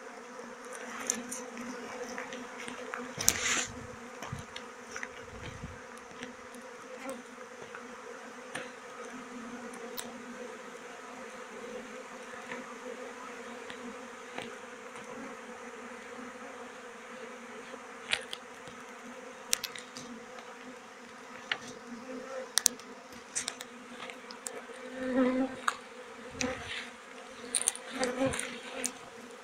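A swarm of honeybees buzzing: a steady, even hum of many wings. Scattered clicks and rustles of brush break in, several of them close together near the start and near the end.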